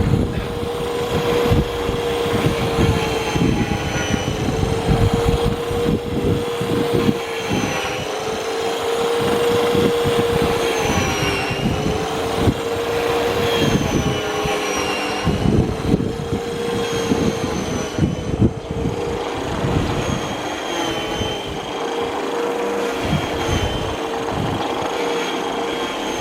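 Makita MLM-2851 reel lawn mower running as it cuts grass: a steady whine that sags briefly in pitch about every two seconds, over a low crackle from the cutting. The whine is the abnormal noise the owner thinks comes from a worn reel-blade shaft bearing.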